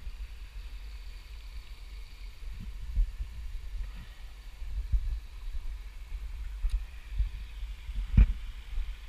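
Low, steady rumble from a Onewheel rolling on a dirt and gravel trail, with a few dull thumps about three, five and eight seconds in, the one near the end loudest.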